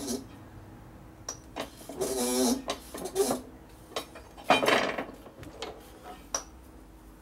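Irregular metal clicks and knocks, with a short rasping run about two seconds in and a louder scrape about four and a half seconds in, as a roller bearing is pressed into a Harley-Davidson Sportster Ironhead engine case until it sits flush.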